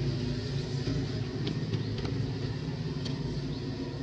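Steady low engine rumble, with a few faint light clicks over it.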